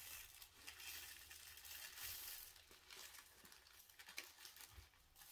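Faint crinkling of a small plastic zip bag of diamond-painting drills being handled, with a few light ticks, the clearest about four seconds in.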